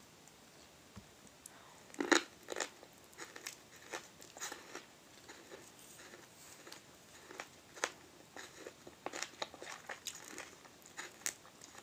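A person biting into and chewing a grilled, charred wild onion leek: a crunchy bite about two seconds in, then irregular chewing clicks.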